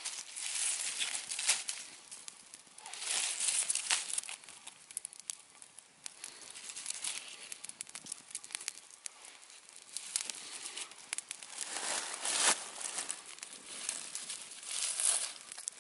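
Wood campfire crackling: irregular swells of rustling hiss, each a second or so long, peppered with sharp pops.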